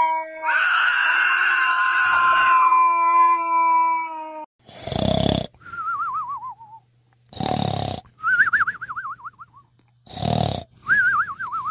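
Cartoon snoring sound effect, three times over: a rough snore on the in-breath, then a wavering whistle that falls in pitch on the out-breath. Before the snoring, for the first four seconds or so, a steady droning sound with a raspy layer.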